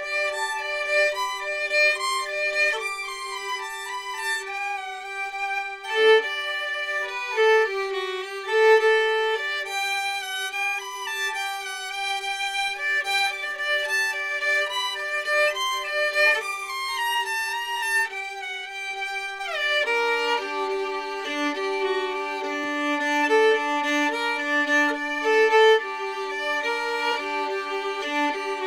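Solo violin, played by an adult beginner, carrying a slow melody over a held drone note; about two-thirds of the way through the drone drops to a lower pitch.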